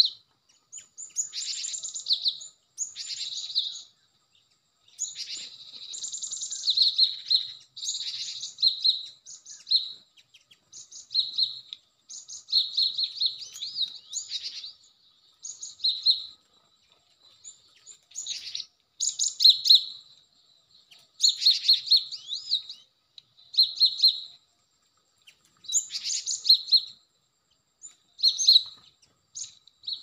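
Cinereous tits (gelatik batu) calling: short bursts of rapid, sharp chirps repeated every second or two, with brief pauses between.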